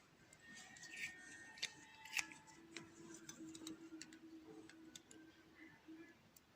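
Faint small metal clicks and clinks of lock pins and springs being handled as the Euro cylinder is taken apart. The clicks are scattered and irregular, with a faint low hum under the middle part.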